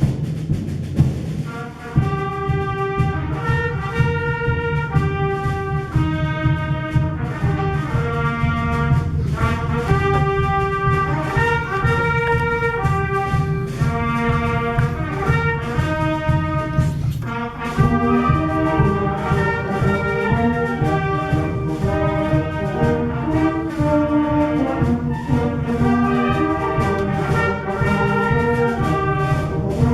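A concert band playing, with brass to the fore over a steady percussion beat; the full band comes in about two seconds in after a brief drop in level.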